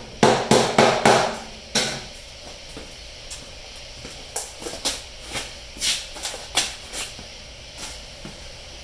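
A lid being tapped shut with a hammer: about five sharp, ringing knocks in the first two seconds. Then footsteps on a concrete floor, about two a second.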